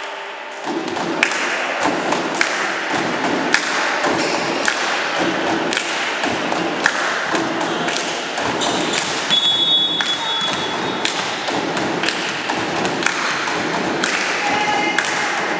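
Spectators in a sports hall keep up a steady thumping beat, a strong thump about once a second with lighter ones between, over a constant murmur of crowd noise.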